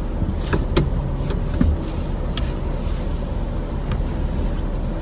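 Low steady rumble of a car idling, with several short knocks and rustles, mostly in the first half, as a person climbs across from the driver's seat into the passenger seat.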